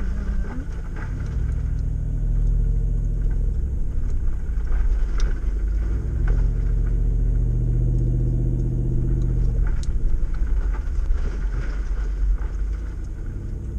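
Off-road vehicle's engine pulling slowly over a rocky trail, its revs rising and easing twice under load, with a few scattered knocks.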